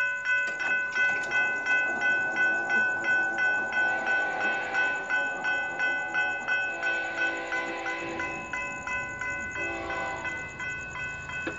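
Railroad grade crossing bell ringing steadily at about three strikes a second. Near the end an approaching freight locomotive's horn starts up, still distant and quieter than the bell.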